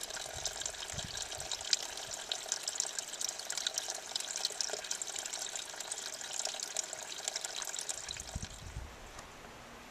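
Thin streams of water trickling off a mossy rock ledge, splashing and dripping steadily; the sound drops away near the end.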